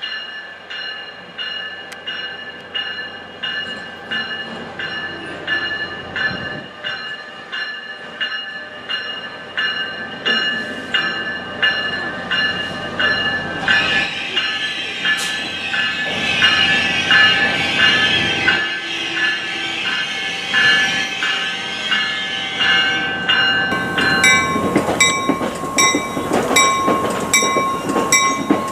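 Arriving NJ Transit passenger train, led by an ALP-46 electric locomotive, with a bell ringing steadily about two to three times a second. Train and wheel noise grows louder about halfway through as the locomotive pulls in. Near the end the sound cuts to another train at a platform, with a bell ringing more slowly.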